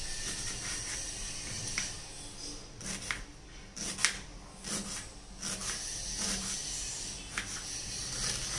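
Kitchen knife slicing through a red onion on a wooden cutting board, each cut ending in a light tap of the blade on the board. The cuts come slowly and irregularly, about one a second.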